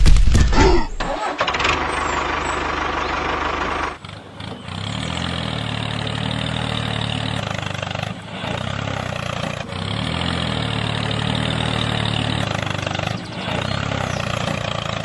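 Tractor engine starting with a quick clatter, then running with the revs rising and falling several times. It drops away briefly about four, eight and thirteen seconds in.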